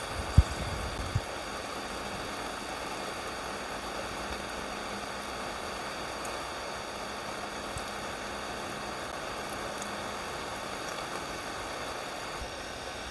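Frozen pork belly sizzling steadily in a waffle maker. Two low knocks come within the first second or so.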